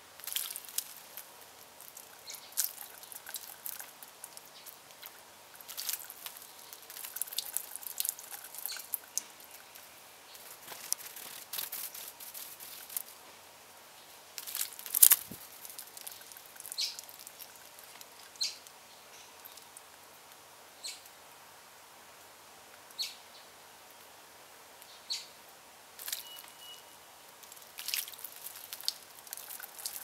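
Small songbirds, a western bluebird among them, splashing and fluttering in shallow bird-bath water in irregular bursts, loudest about halfway through. A few short, high bird chirps are scattered between the bursts.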